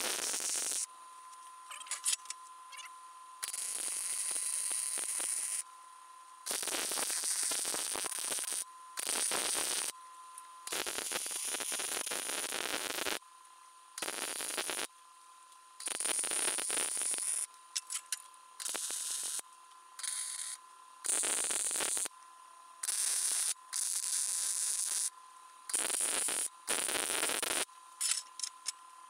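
Wire-feed welder crackling as it runs a series of welds joining a steel tension rod to an angle-iron bending-brake leaf. There are about a dozen welds, each one to three seconds long, and each starts and stops sharply.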